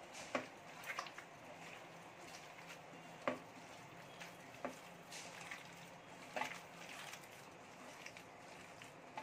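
A hand kneading a wet minced-chicken and egg cutlet mixture in a steel bowl: faint squishing, with a few light clicks.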